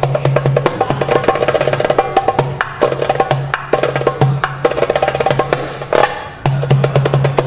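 Alexandria darbuka (goblet drum) played by hand: very fast finger rolls and sharp rim strokes, with deep bass strokes falling between them. The rhythm breaks off briefly about six seconds in and then resumes.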